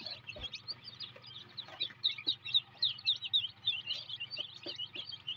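A brood of newly hatched chicks peeping, with many short high chirps overlapping continuously. A low steady hum runs underneath.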